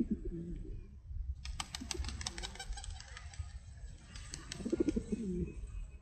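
Rock pigeons cooing, with two low warbling coos: one just after the start and a louder one about five seconds in. A run of sharp clicks comes about two seconds in.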